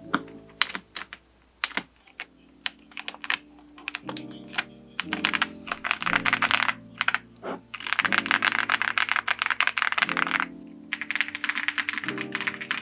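Typing test on a Zoom65 65% custom mechanical keyboard fitted with Strawberry Milk tactile switches and DSA keycaps. Scattered single keystrokes for the first few seconds, then fast continuous typing in runs with short breaks.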